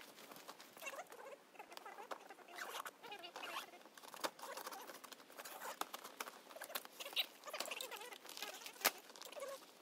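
Rustling, crackling and snapping of a vinyl banner cover and dead sticks being handled on a stick-frame teepee, as a string of scattered short clicks with a sharper snap near the end.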